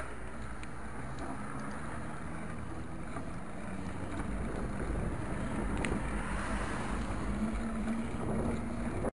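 Wind buffeting the microphone of a bike-mounted action camera while riding, with the rumble of bicycle tyres on asphalt, growing a little louder in the second half.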